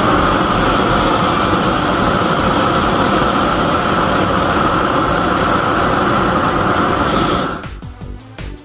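A motor running steadily with a constant high hum, dropping away near the end.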